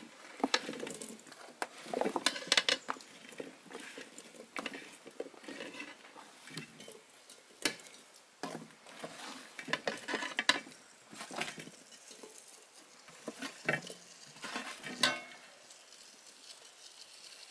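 Chunks of raw white yam dropped by hand into a small metal cooking pot, making irregular clatters and knocks as they hit the pot and each other, in quick runs with short pauses, thinning out near the end.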